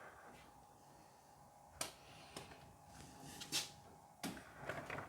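A few faint, scattered knocks and clicks of handling.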